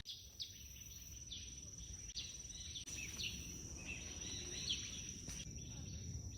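Tropical forest ambience: a steady, high-pitched insect drone with a fine pulse, with short falling bird chirps repeated every second or so, over a low background rumble.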